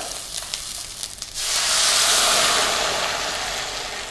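Oil and tempering spices sizzling in a stainless steel pan; about a second and a half in, horse gram cooking water is poured into the hot oil and sets off a sudden loud hiss of steam that slowly dies down.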